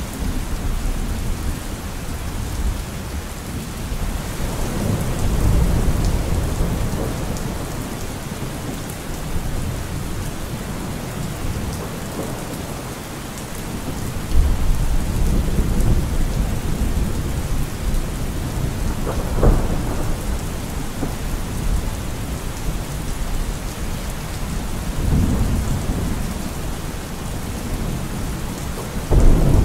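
Thunderstorm: steady rain with rolling thunder, swelling several times, with a sharper clap about twenty seconds in and a loud one near the end.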